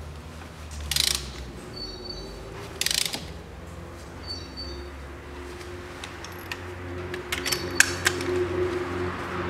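Ratchet wrench on an extension clicking as it is swung back between strokes while tightening a spark plug the final two-thirds of a turn. Two short bursts of ratcheting about two seconds apart, then a run of sharper clicks later on.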